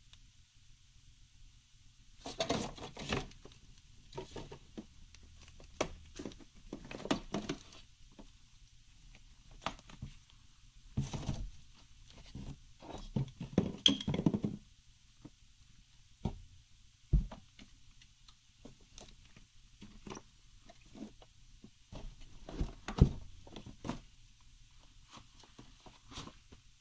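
Handling noise from a 1U rack server being lifted and turned over in its foam packing: scattered scrapes, rustles and small knocks of the metal chassis against foam and cardboard, with the loudest knock a little before the end.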